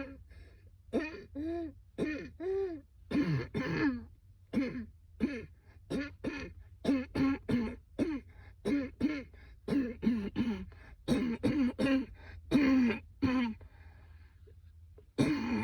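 A woman in a persistent coughing fit: a long run of short coughs and throat-clearing, two or three a second, then a pause of about a second and a half before one more loud cough near the end.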